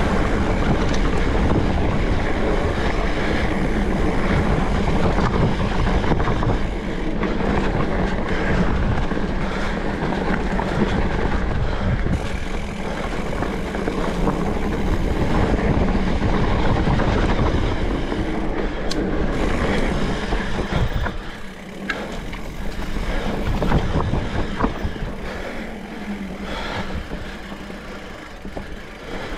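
Specialized Turbo Levo electric mountain bike ridden down a rough dirt trail: a loud, steady rumble of tyres and rushing air with short rattling knocks from the bike. It eases off about two-thirds of the way through.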